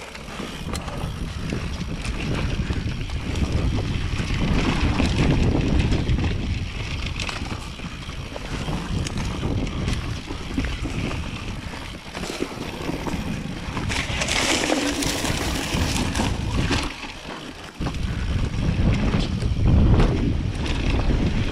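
Mountain bike on Maxxis DHF tyres riding down a dirt trail: wind buffeting the camera microphone over the rumble of the tyres on the ground, with frequent knocks and rattles from the bike. The rumble drops away briefly near the end, then comes back suddenly.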